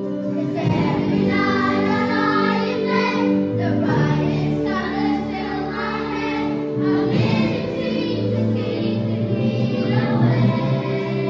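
A group of children singing together in unison over an instrumental accompaniment, the voices coming in about half a second in.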